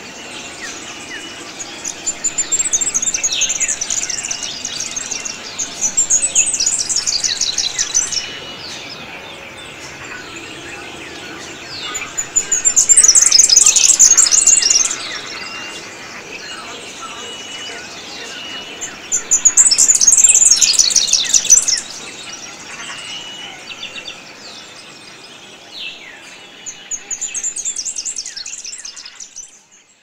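Wild birds calling in a wetland forest: several loud bursts of a rapid, high trill, a few seconds each and recurring every six or seven seconds, with short high chirps between them. The sound fades out at the very end.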